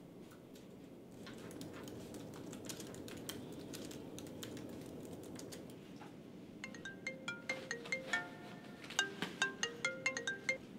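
A quick melody of short, bell-like plucked notes starts about two-thirds of the way in, over a soft steady hiss with a few faint ticks.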